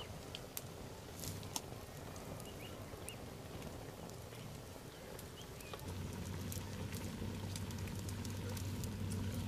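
Small open wood fire crackling with scattered sharp pops under a cooking pot; a steady low hum comes in about six seconds in.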